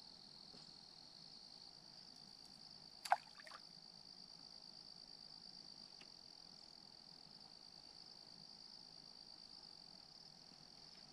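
Faint, steady high-pitched trilling of crickets in an evening insect chorus. About three seconds in, a single sharp plop in the water is followed by a couple of smaller ones.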